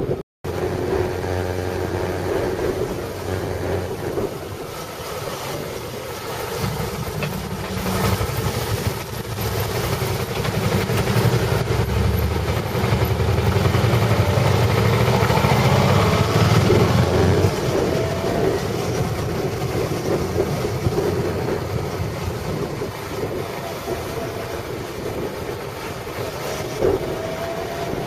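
Motorcycle engine running and wind on the microphone while riding, heard from the bike itself, with a louder low rumble for about ten seconds in the middle.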